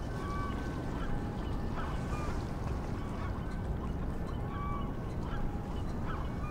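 Outdoor riverside ambience: a low steady rumble of water and distant traffic, with waterbirds giving short calls every second or so.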